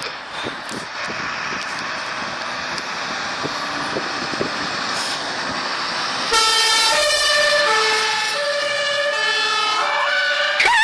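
German fire engine's two-tone siren (Martinshorn) starting about six seconds in, alternating between a high and a low pitch as the truck pulls out, over a steady background noise. Near the end the siren tone starts to glide upward.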